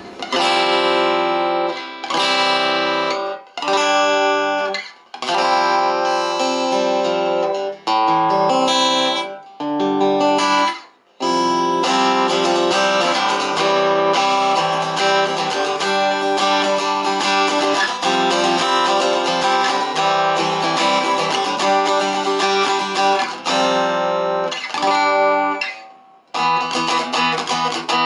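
Acoustic guitar played through a small Topsound A20 acoustic guitar amplifier, with its treble and bass turned fully up and the mids centred, giving a sharp, bright tone. Chords come with brief pauses in the first half, then the playing runs on without a break until a short pause near the end.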